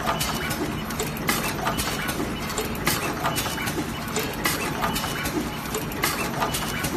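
Fully automatic wire cutting, stripping and double-end terminal crimping machine running through its cycle: a steady mechanical hum with frequent sharp clacks from its cutting and crimping heads as it turns out finished wires.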